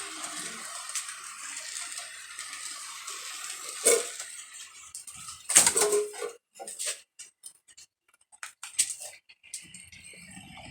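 HO scale model train running on the layout with a light scraping hiss for the first few seconds, then a scatter of sharp small clicks and clinks.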